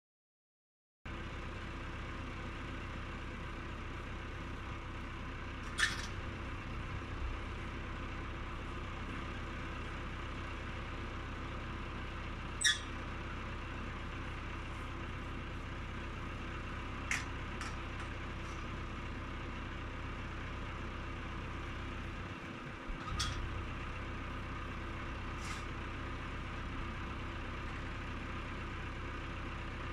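Tractor engine idling steadily, starting about a second in. Over it come several sharp clicks and knocks as the sprayer's hinged galvanized booms are swung out by hand.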